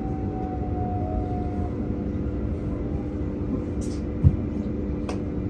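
Inside the cabin of a Sydney Trains Millennium electric train: a steady rumble with a constant electrical hum, and a falling whine from the traction motors that dies away within the first two seconds as the train slows. A single short thump comes about four seconds in.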